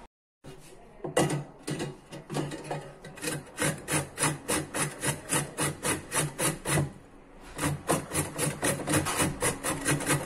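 A peeled carrot being grated by hand on a metal box grater: quick rasping strokes about three a second, with a short pause about two-thirds of the way through.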